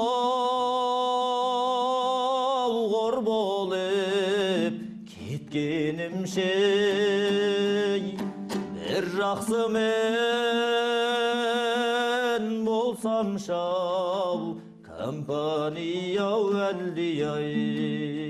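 Kazakh folk music: a voice holding long notes with vibrato in phrases of a few seconds, over plucked string accompaniment and a steady low drone.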